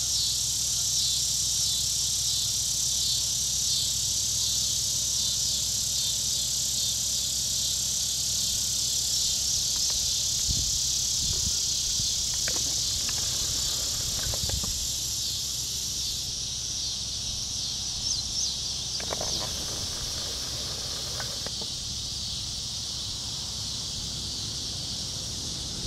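Steady high-pitched chorus of summer insects with a fast, fine pulsing, over a low steady rumble; a few brief faint noises come through in the middle.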